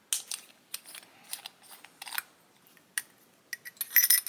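Parts of a brass pocket tool kit being handled: a string of sharp clicks and light metal scrapes, with small metal pieces clinking together and ringing briefly near the end.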